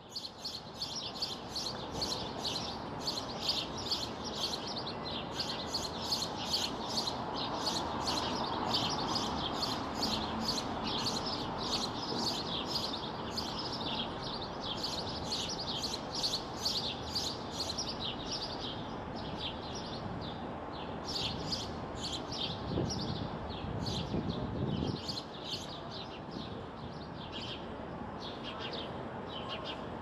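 House sparrow chirping steadily: a long run of short, sharp cheeps, about three a second, the repeated call a male gives at a nest site. A steady low background noise runs underneath, swelling briefly near the end.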